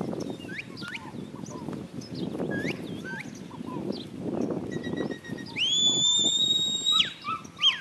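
Whistled herding commands to a cattle dog: short rising and falling whistles, a long steady whistle note held for over a second about five and a half seconds in, then more quick rising-and-falling whistles near the end, over a low rustling.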